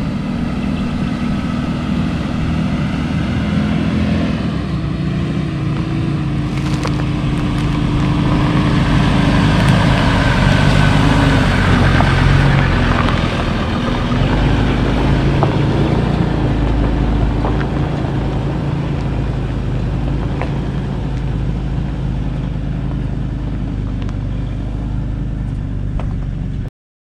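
Four-wheel-drive vehicle's engine running as it drives, growing louder to a peak about halfway through and then easing off, with a few light knocks. The sound cuts off suddenly near the end.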